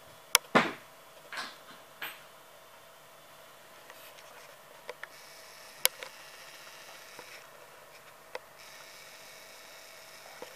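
Handling noises from a plastic IV cannula being fitted in a small dog's foreleg: a few short, sharp clicks, two louder ones within the first second, then scattered single ones, over a faint steady hum.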